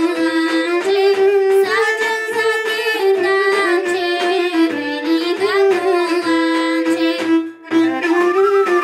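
A girl singing a Bulgarian folk song over a recorded backing track of folk instruments. The ornamented melody is carried over a steady low beat of about two pulses a second, with a brief drop about seven and a half seconds in.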